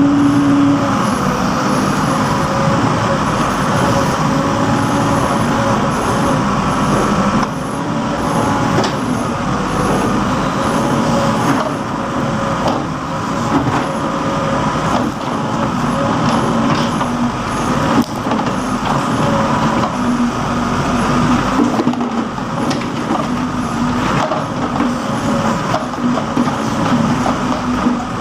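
Backhoe loader's diesel engine running steadily while digging, its pitch wavering up and down, with a few knocks.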